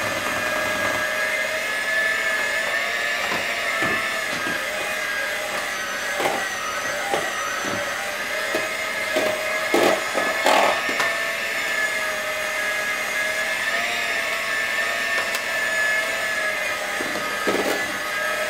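Handheld electric mixer running steadily, its beaters whipping mashed potatoes in a stainless steel bowl, with a few sharp knocks about halfway through and once near the end.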